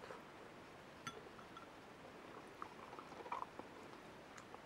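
Near-quiet room with faint chewing and a few small clicks and taps, at about a second in and again around three seconds in.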